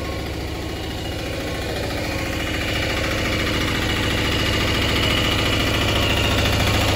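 Resort shuttle golf cart's engine running as the cart pulls up, a steady low drone that grows louder as it comes close.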